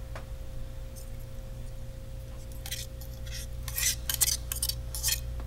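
A spoon scraping and knocking coconut chutney out of a blender jar into a glass bowl. There is one click just after the start, then a run of short scrapes and clinks in the second half.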